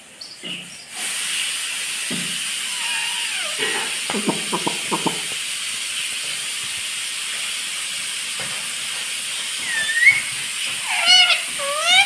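Steady hiss under a rose-ringed parakeet's calls: a quick run of short chattering notes near the middle, then a string of sharp, rising-and-falling calls near the end.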